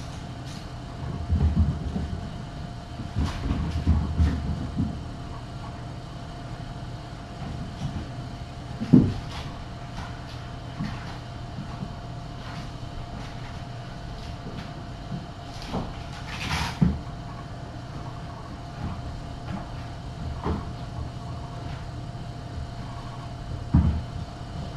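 Kittens playing around a carpeted cat tree: scattered low thumps and bumps from them running and jumping, the loudest a single thump about nine seconds in, with a brief scratchy noise a little past halfway. A steady electrical hum runs underneath.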